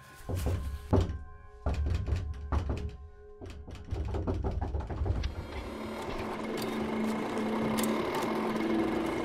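Film score with sound design: scattered sharp clicks and knocks over low pulsing thuds. After about five and a half seconds they give way to a dense, steady, machine-like whirring with two held low notes.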